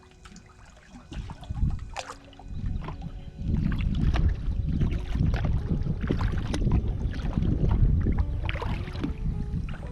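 Sea kayak paddling: paddle splashes and water sloshing, with wind buffeting the microphone. It grows much louder and rougher about three and a half seconds in.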